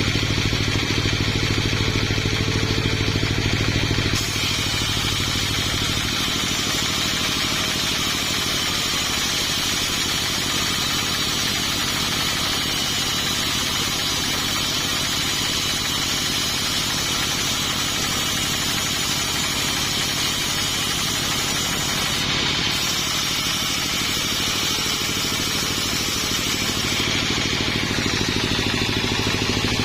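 Sawmill engine running steadily. About four seconds in, the low drone drops and a higher, hissy sound comes up and holds.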